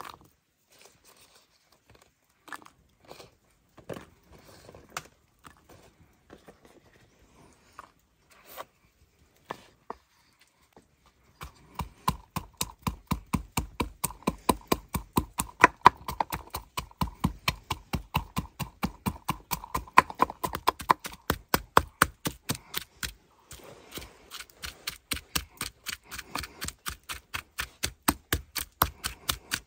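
A knife chopping rapidly on a cutting board, about four even strokes a second, beginning about eleven seconds in after scattered quiet scrapes and taps. The chopping stops briefly a little past two-thirds of the way through, then picks up again.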